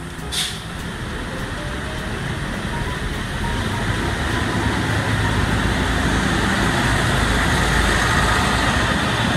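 A train of two ALn 668 diesel railcars and a trailer pulling away, its underfloor diesel engines and wheels growing steadily louder as the carriages pass close by. A short hiss about half a second in.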